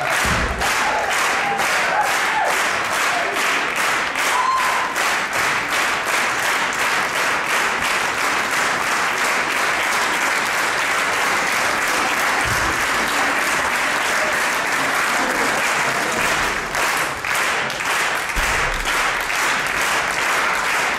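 Audience applauding steadily and continuously.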